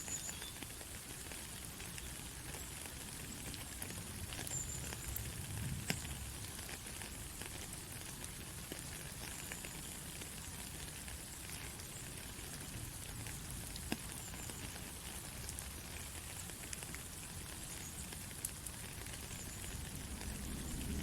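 Steady rainfall, a continuous hiss with scattered sharper drop hits and a low rumble underneath.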